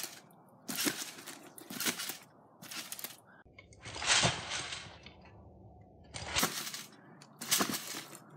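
Repeated bounces on a trampoline with a trampoline scooter, about one a second, each a short clattering burst of springs, mat and scooter.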